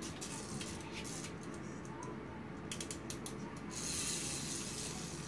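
Small toy excavator's plastic gear mechanism ratcheting and clicking in short runs, with a denser high rush of noise over the last second and a half.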